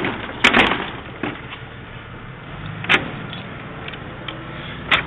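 Sharp metallic clicks and knocks from a key being turned and worked in the lock of a box truck's rear cargo door: a quick cluster about half a second in, then single clicks near 3 s and again near the end, over a steady background hum.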